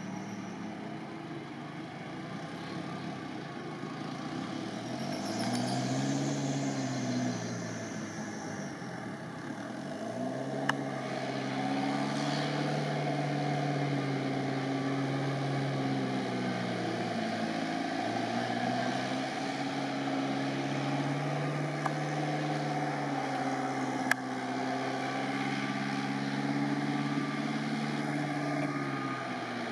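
Off-road 4x4's engine revving up and down over and over, its pitch rising and falling every few seconds, with a few sharp knocks.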